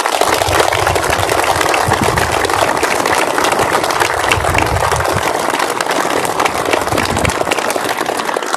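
A large crowd applauding: dense, steady clapping that begins to die away near the end.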